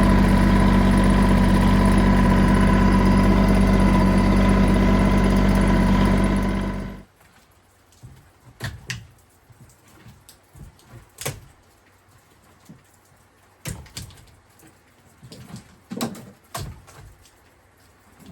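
Tractor engine running steadily, cutting off abruptly about seven seconds in. After that it is much quieter, with scattered sharp knocks and taps.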